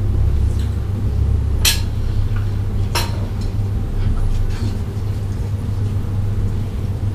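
Countertop blender motor running steadily with a low rumble, grinding hazelnuts. Two sharp clinks sound about two and three seconds in.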